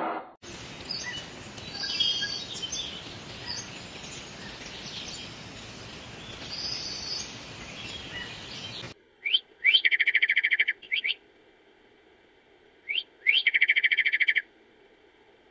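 Birds chirping over a steady rushing hiss. In the second half this gives way to two fast trilled bird calls, each lasting about a second and a half.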